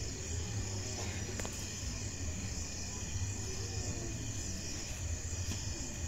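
Crickets and other night insects chirring in a steady chorus, over a low steady hum.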